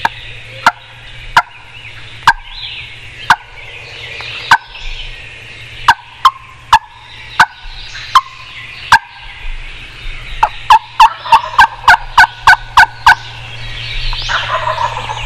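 Turkey yelping: sharp, falling yelps, at first singly about a second apart, then a quicker run of about ten in a row.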